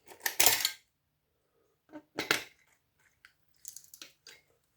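Metal parts and hand tools clattering and clinking on a work surface as a power supply board is handled: a loud clatter in the first second, another about two seconds in, and a few light clicks near the end.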